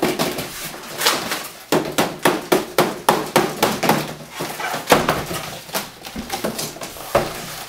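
Cardboard shipping box being knocked, shaken and scraped as a longboard deck is worked out of it: a quick, irregular run of knocks with rustling in between.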